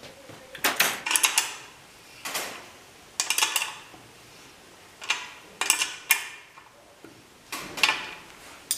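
Ratchet wrench clicking in short bursts of rapid clicks, several times over, as a clamp bolt is tightened while its other end is held with a driver.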